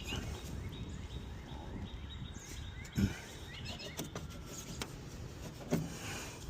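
Small birds chirping repeatedly in the background over a low, steady outdoor rumble, with a short knock about three seconds in and another near the end.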